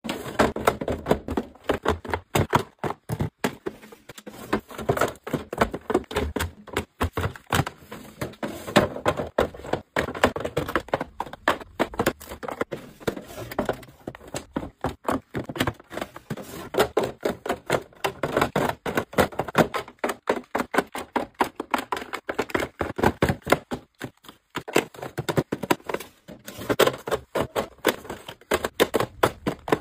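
Dense, irregular clicking and tapping of small boxed toiletries and plastic packaging handled and set into white plastic storage drawers, with the drawers pulled open and slid.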